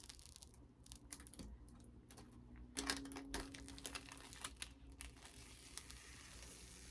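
Irregular light clicks and crinkling of plastic being handled, quick and close together.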